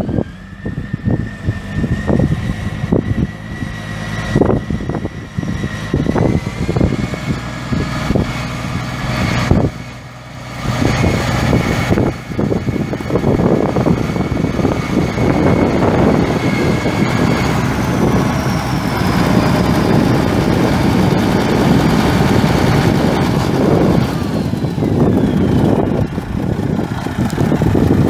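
A 1975 Case 2670 tractor's 8.3-litre six-cylinder turbo diesel running, with a steady high whine over the engine noise. The pitch rises about six seconds in and falls away near the end, and the loudness dips briefly around the middle.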